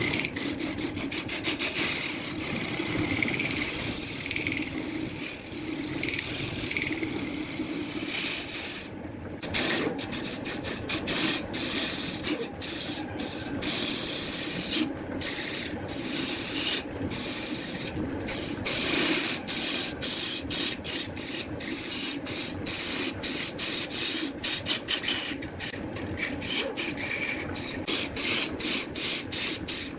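Wood lathe running while a turning tool scrapes and cuts the spinning wood: a steady hiss over the lathe's hum, broken by many short gaps as the tool lifts off, more often from about a third of the way in.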